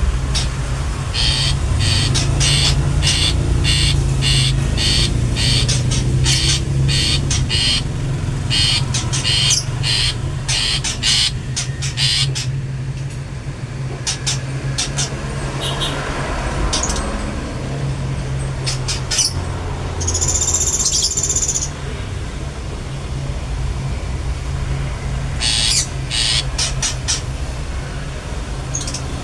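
Long-tailed shrike calling in quick series of short, sharp "toet" notes, about two a second, then a single longer high note around twenty seconds in and a few more short notes near the end. A steady low hum runs underneath.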